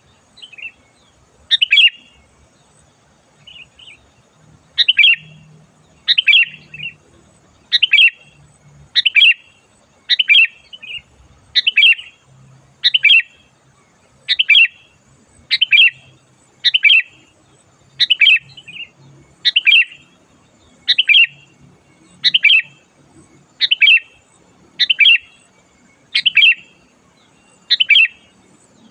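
Sooty-headed bulbul (kutilang) song: the same short, loud, chattering whistled phrase repeated over and over at an even pace, about one every second or so.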